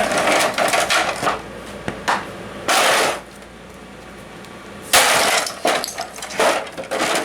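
A humidifier fan being smashed: a run of blows and breaking in the first three seconds, a pause of about two seconds, then a loud hit about five seconds in and more blows.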